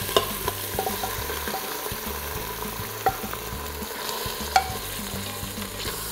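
Cubed raw chicken sizzling in hot oil in an Instant Pot's stainless steel inner pot on high sauté, stirred with a wooden spoon, with a few sharp knocks against the pot.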